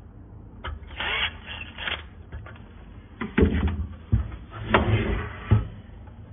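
Handling noise from a small inverter welder's sheet-metal case: a screwdriver clicks and scrapes on screws, then several dull knocks follow as the case and its parts are handled.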